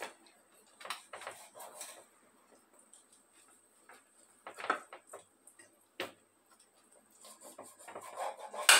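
A knife scoring a whole raw fish on a ceramic plate: scattered short scrapes and clicks of the blade and fish against the plate, with a sharper click near the end.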